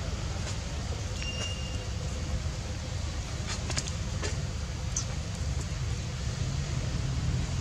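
Steady low outdoor rumble, with a few faint clicks and a short high tone about a second and a half in.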